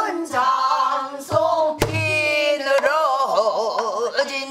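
Woman singing a sustained pansori phrase with wide, wavering vibrato. She accompanies herself on a buk barrel drum: a few strokes, the sharpest a crisp stick strike about two seconds in, followed by a low boom from the drum.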